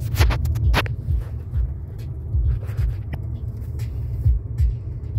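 Low rumble of a car driving slowly, heard from inside the cabin, with a quick cluster of sharp clicks about half a second in.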